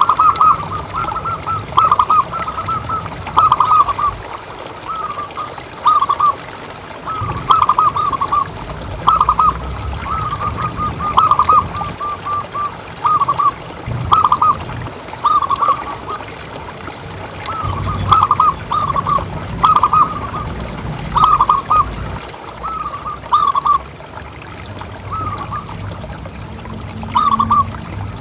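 Zebra dove (perkutut) cooing: quick groups of short, rolling notes repeated about once a second without a break, over a low background rumble.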